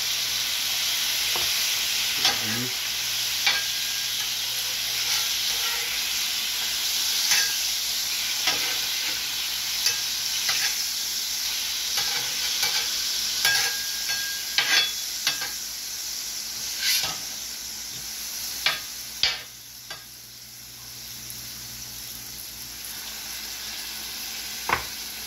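Pineapple juice sizzling on a hot steel flat-top griddle around slices of SPAM: a steady hiss with frequent sharp crackles. It grows quieter over the last few seconds.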